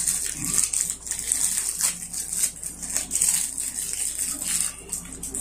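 A small plastic hardware bag crinkling and rustling as it is handled, with irregular light clicks from the plastic pieces inside.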